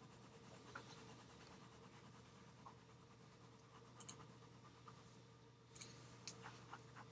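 Faint scratching of a graphite pencil on paper during shading, with a few small ticks near the end over a steady low hum.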